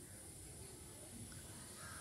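Near silence: faint outdoor background noise with a low rumble and a steady high hiss.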